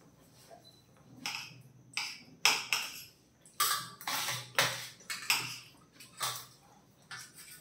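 Spoon and fork clinking and scraping against a steel plate and a ceramic plate while parotta is cut and scooped up. The clinks and scrapes come irregularly, about one every half second, starting about a second in.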